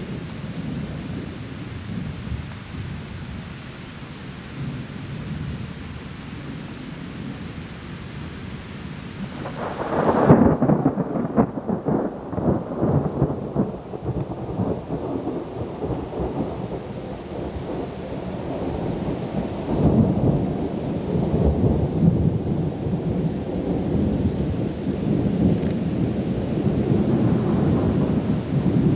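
Thunderstorm: rain with low rumbling thunder. About ten seconds in a loud crack of thunder breaks into long rolling rumbles, which swell again around twenty seconds in.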